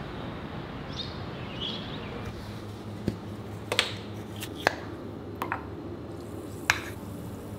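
A tube of effervescent vitamin tablets being handled: a few sharp clicks and taps as the plastic cap comes off, a tablet drops into a glass of water and the tube and cap are set on the counter, over a low steady room hum. A couple of faint bird chirps come before the clicks.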